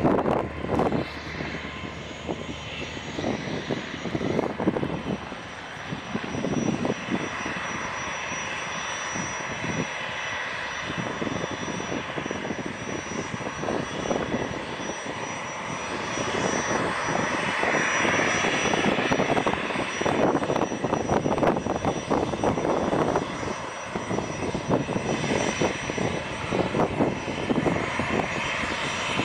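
Aircraft engine running steadily, growing louder about halfway through, with a thin steady high whine over it.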